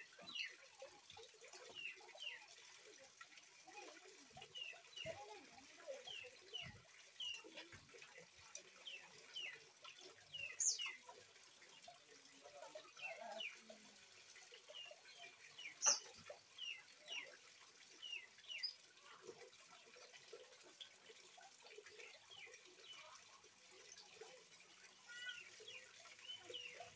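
Juvenile oriental magpie-robin, about three months old, giving short chirps over and over, one or two a second, with a couple of sharper high notes, over a faint trickle of running water.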